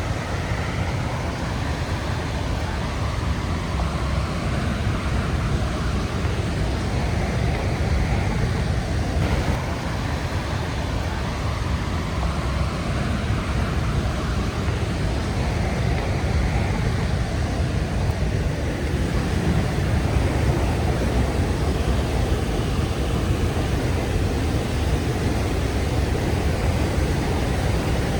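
Rhine Falls waterfall: a steady rush of falling water, heaviest in the low end.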